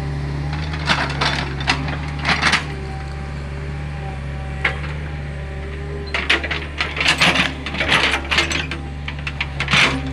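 Hitachi excavator's diesel engine running steadily, with bursts of sharp clattering and knocking as the machine works dry, hard ground. There are a few clatters in the first seconds, one knock midway, and a longer run of clatter in the second half.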